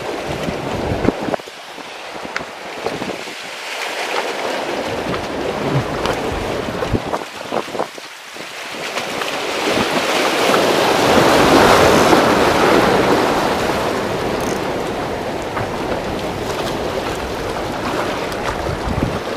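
Rough sea surf washing against concrete breakwater blocks, mixed with strong wind buffeting the microphone. The rushing grows loudest about halfway through as a bigger wave or gust comes in, then settles back.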